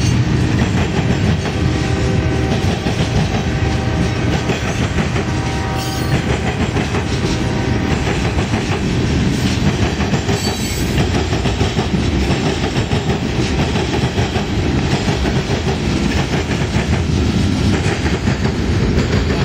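Freight train of gondolas, covered hoppers and tank cars rolling past at close range. Steel wheels make a steady rumble on the rail, with the clickety-clack of wheels passing over rail joints.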